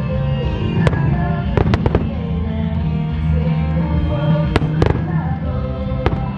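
Fireworks bursting with several sharp bangs, a quick cluster of them about a second and a half in and another pair past four seconds. Under them a pop song with a singer plays; the starmine shells are timed to it.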